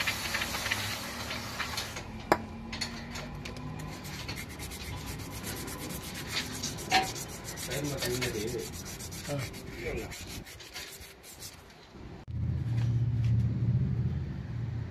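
Hand work on car brake parts: rubbing and scraping with scattered sharp clicks and knocks. About twelve seconds in, a steady low hum starts.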